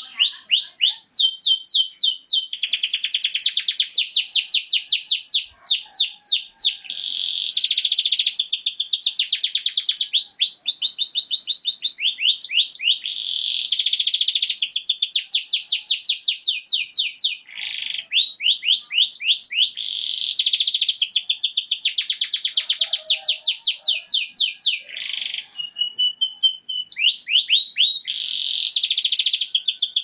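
Male domestic canary singing continuously: a fast run of rolling trills, each phrase a rapid string of quick falling notes that switches to a new phrase every second or two, with a few brief pauses. It is the male's breeding song, used to stimulate hens for mating.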